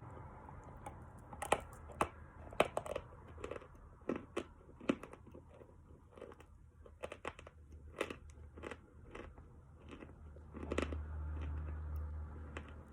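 Close-miked biting and chewing of lumps of natural chalk: sharp, irregular crunches. A low rumble comes in near the end.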